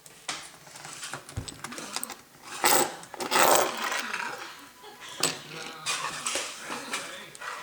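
Scattered small clicks and clatter from a screwdriver working on a laptop's keyboard screws and the plastic case being handled, with a louder scuffling burst about three seconds in.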